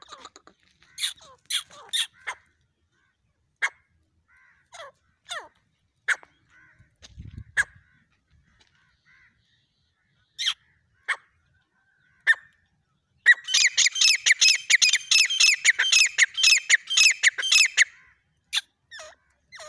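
Grey francolin calling: scattered short, sharp calls for the first dozen seconds, then a fast run of loud repeated notes lasting about five seconds, and a few more single calls near the end.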